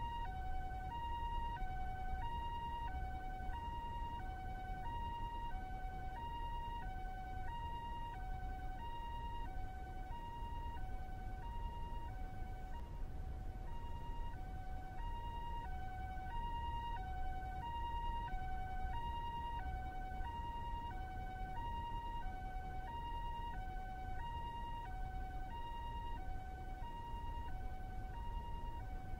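Japanese ambulance siren sounding its two-tone high-low call, the two notes alternating steadily, each held a little over half a second, over a steady low rumble.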